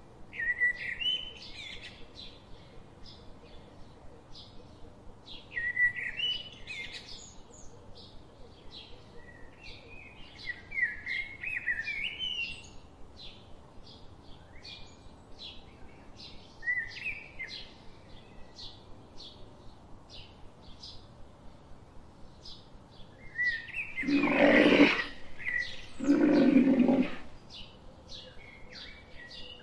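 Small birds singing short chirping phrases every few seconds over a steady run of thin high chirps, about two a second. Near the end come two loud, rough, breathy blasts of about a second each, a second or so apart.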